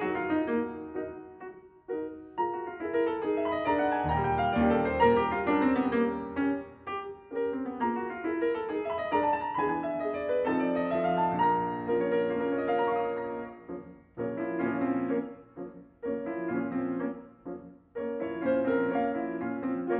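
Steinway & Sons grand piano played solo: a classical piece in flowing phrases of many notes, with short pauses between phrases.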